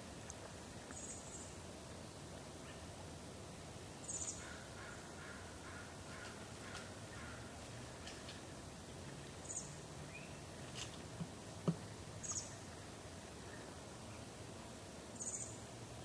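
A few faint, irregular taps from a pileated woodpecker pecking at a log for grubs, the loudest one past the middle. Short, very high bird chirps come every few seconds over a steady outdoor hush.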